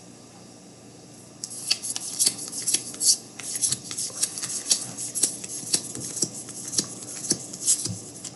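Trading cards and pack wrappers being handled during a box break: a quick run of crisp clicks and rustles, several a second, starting about a second and a half in.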